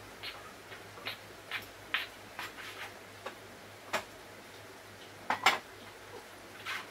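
Light, irregular clicks and taps of a utensil against a small bowl, about a dozen in all, with the loudest pair about five and a half seconds in.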